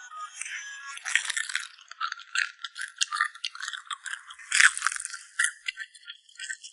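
Close-up crunching of crisp food being bitten and chewed: rapid, irregular crackles with one louder crunch about halfway through.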